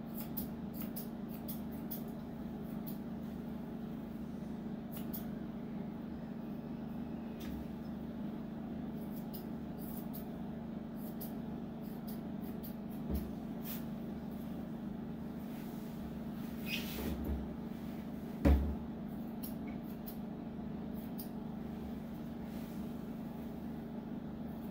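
Steel grooming scissors snipping through a Yorkshire Terrier's leg fur: short, crisp clicks at an irregular pace, over a steady low hum. A single louder thump comes about two-thirds of the way through.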